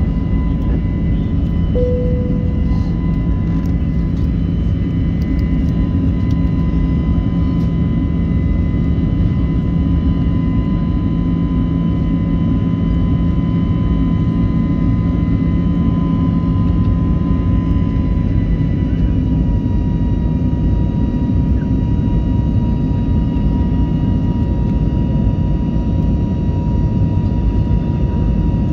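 Jet engine and airflow noise inside the cabin of a climbing easyJet Airbus A320-family airliner: a loud, steady rush with a constant whine over it that steps slightly lower in pitch about two-thirds of the way through. A brief tone sounds about two seconds in.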